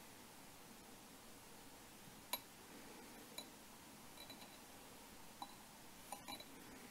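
Near silence, with a handful of faint, sharp clicks scattered through it, the clearest a little over two seconds in.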